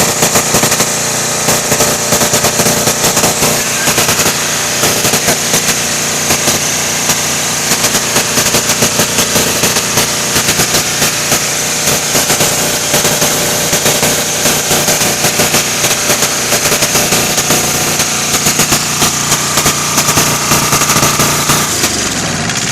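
Kohler KD425-2 two-cylinder diesel engine running with a fast, loud, rapping exhaust clatter; its exhaust is broken.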